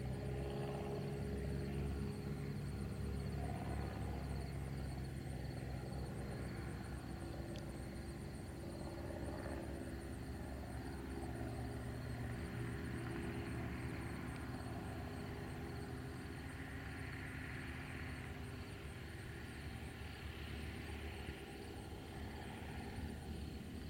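Cessna 172's piston engine and propeller droning steadily as the plane approaches to land.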